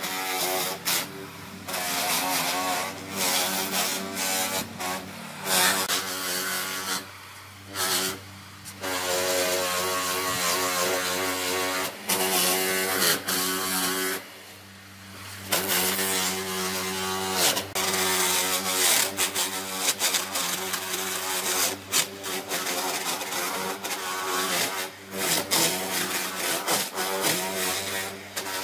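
A power tool's motor running with its pitch wavering under changing load, dropping away briefly several times.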